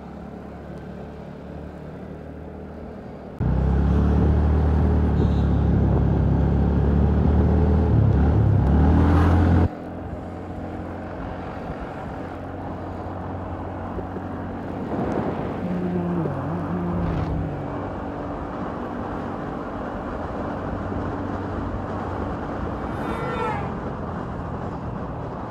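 125 cc motorcycle engine accelerating. From about three seconds in it gets louder and its pitch climbs under throttle, then it drops suddenly near the ten-second mark. It then runs steadily with wind and road noise as the bike picks up speed.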